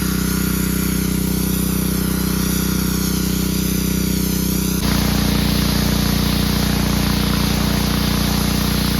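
Gas-engine pressure washer running at a steady pitch. About five seconds in, the sound shifts and a rougher hiss joins the engine note.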